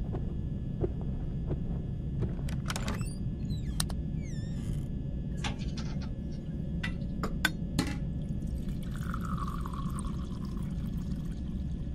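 Steady low rumble with scattered sharp clicks and knocks, a few short falling chirps about four seconds in, and a rushing hiss from about nine to eleven seconds.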